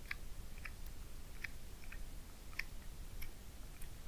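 Light, irregular clicks, roughly one every half second to second, from a baitcasting reel and rod being worked during a slow lure retrieve, over a faint low rumble.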